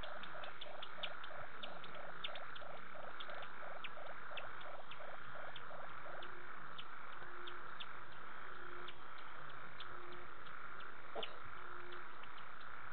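Night chorus of frogs and insects: a steady high insect hum with many scattered chirps and clicks, and a fast pulsing call of about three or four pulses a second that stops about six seconds in. After that, short low notes repeat about once a second, and a single sharp click comes near the end.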